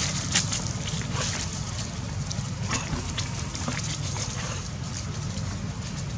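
Macaques giving a few short, high squeaks and squeals, scattered through the first four seconds, over a steady low rumble.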